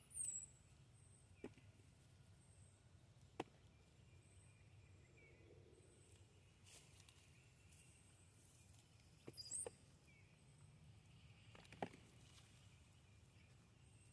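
Quiet outdoor garden ambience: two short high bird chirps, one at the start and one about two thirds of the way through, over a faint high chirp repeating about once a second. A few soft sharp clicks are also heard.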